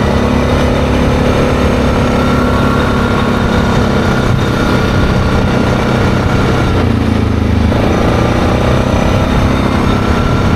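ATV engine running under way at road speed, steady and loud. About seven seconds in the engine note dips for under a second, then rises again as the throttle comes back on.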